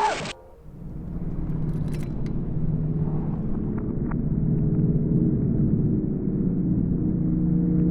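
A brief loud sound cuts off abruptly at the very start. A steady low rumble with a droning hum then swells in over the next couple of seconds and holds, with a few faint clicks.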